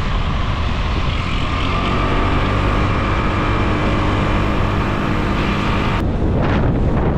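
Wind buffeting the microphone while riding a motor scooter, with the scooter's engine running at a steady hum underneath. About six seconds in the engine hum drops away abruptly, leaving the wind noise.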